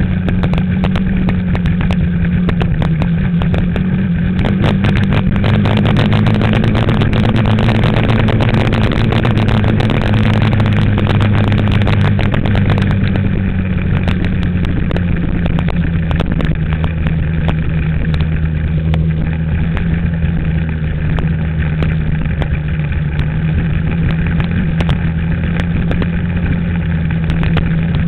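Dirt bike engine running at a steady cruising speed, its hum climbing slightly about a third of the way in and easing back down a little after the middle. Wind buffets the microphone throughout.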